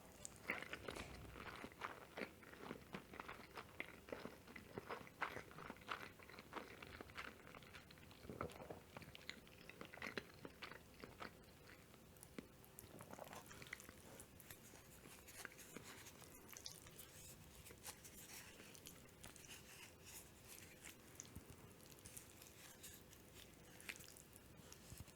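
Close-miked chewing of mushroom carbonara: quick wet clicks and smacks from the mouth, dense through the first half and sparser later.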